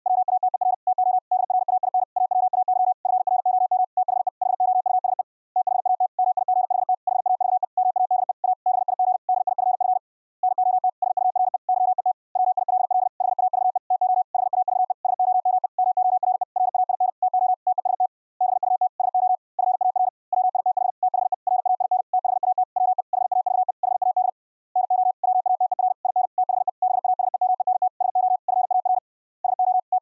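High-speed Morse code (CW) at about 65 words per minute: a single tone near 700 Hz keyed on and off in rapid dits and dahs, with a few short pauses between groups. The tones come from a software keyboard CW keyer sending typed text.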